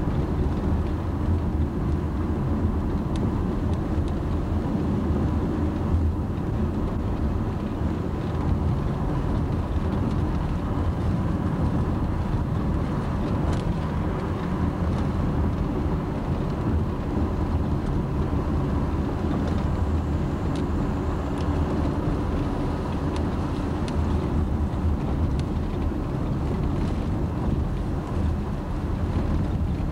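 Steady low rumble of a car driving on a paved road: engine and tyre noise heard from inside the moving car, with a faint steady whine above it.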